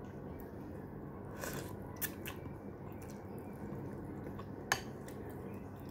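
Someone eating instant noodles from a ceramic bowl: soft wet chewing sounds and two sharp clinks of a metal fork against the bowl, about two seconds in and again near five seconds, over a steady low room hum.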